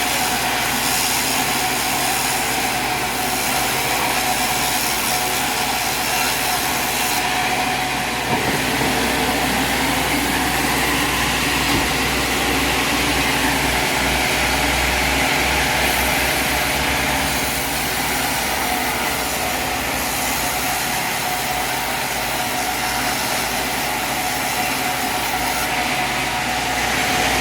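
Sawmill engine running steadily.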